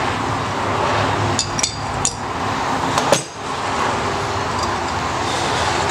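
A few sharp metallic clinks and taps, clustered in the first half, as a valve spring compressor and valve spring parts are handled on an FZR motorcycle cylinder head, over a steady background noise.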